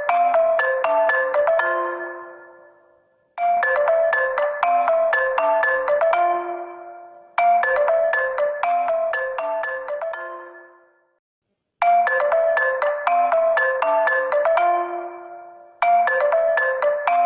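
HONOR phone ringtone playing on loop: a short, bright mallet-tone melody that starts again about every four seconds, each phrase fading away before the next begins.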